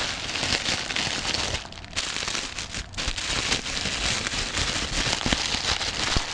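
Clear plastic bubble-wrap packaging crinkling and crackling as it is handled and pulled off a camcorder, in a dense run of small crackles with a couple of brief lulls.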